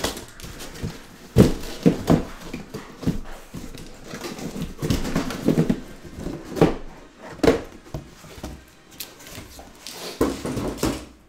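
Shrink-wrapped trading-card boxes being handled in their cardboard shipping case, with plastic squeaking and boxes knocking and scraping against one another at irregular moments.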